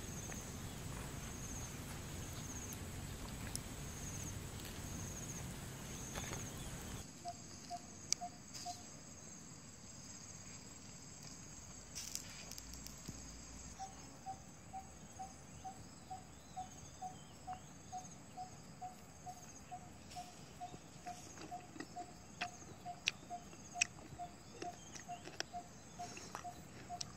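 Faint outdoor ambience. A high chirp repeats about once a second, typical of insects. After a sudden change about seven seconds in, a short piping note repeats steadily about twice a second, with scattered small clicks.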